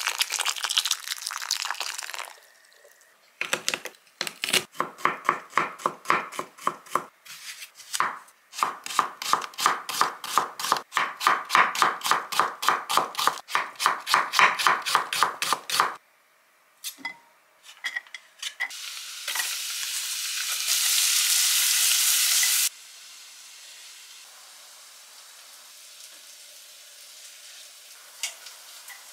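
A knife chopping on a cutting board at about three strokes a second for some twelve seconds, then a few seconds of loud steady hissing that cuts off suddenly.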